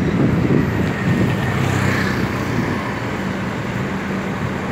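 Street traffic of motor scooters and cars running past, with a steady low engine hum.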